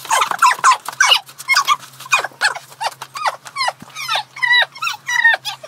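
A rapid run of short, high-pitched yelps, about four or five a second, each one falling in pitch.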